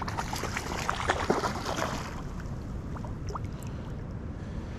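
River water splashing and trickling close by, busy with small splashes over the first two seconds, then settling into a steadier, quieter wash.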